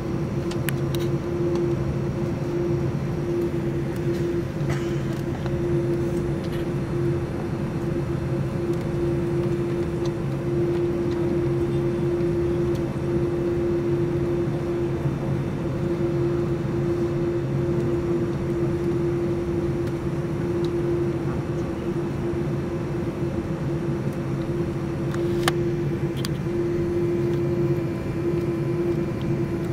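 Cabin noise of a Boeing 787-9 taxiing with its engines at idle, heard from a window seat over the wing: a steady drone with a held hum running through it.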